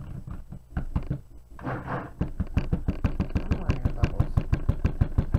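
Stick blender running in a plastic cup of thick soap batter, making a rapid, regular pulsing of about six beats a second that grows louder in the second half.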